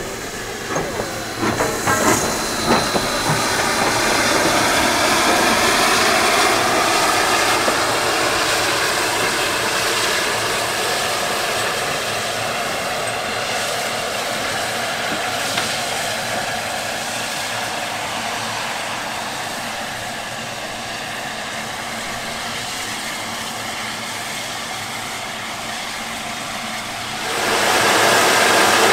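A 140-year-old 4-4-0 steam locomotive hissing steam as it moves slowly, with a few metallic clanks in the first seconds. Near the end a louder steady rush of noise cuts in suddenly.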